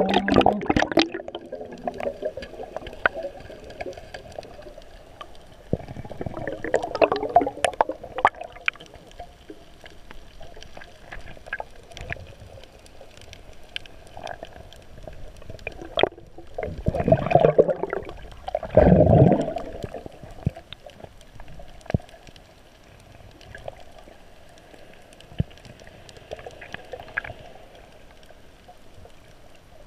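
Underwater sound: a low wash of water noise with scattered faint clicks, swelling three times into louder surges of moving water, about six seconds in and twice around seventeen to twenty seconds in.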